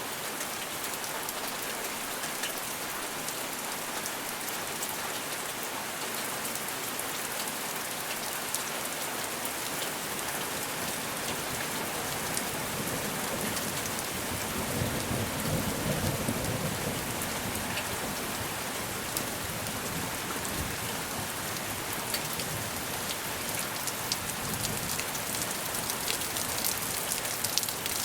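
Steady rain falling and pattering on a surface, with a low rumble of thunder swelling about halfway through.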